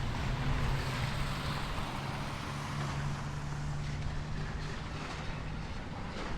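A demolition excavator's diesel engine runs steadily as it works, a low hum that rises slightly in pitch about midway.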